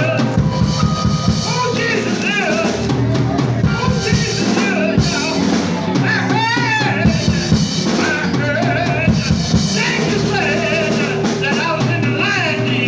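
Church music with a drum kit playing a steady beat and a voice singing over it.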